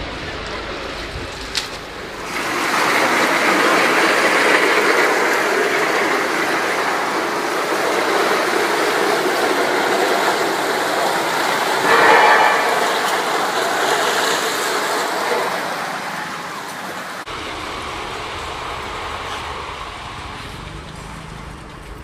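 Rubber crepe rolling mill running, a steady rushing mechanical noise. It swells up about two seconds in and eases off over the last few seconds.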